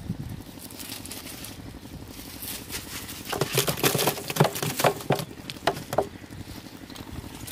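Live prawns flicking and tapping against a metal basin: a quick run of clicks and taps in the middle, over a low steady rumble.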